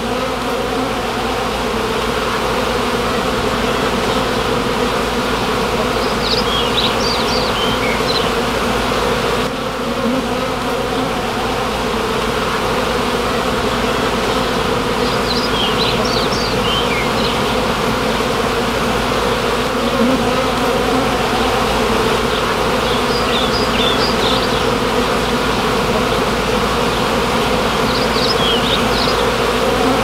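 A large mass of honey bees buzzing in a loud, steady hum as the relocated colony settles into its nuc box.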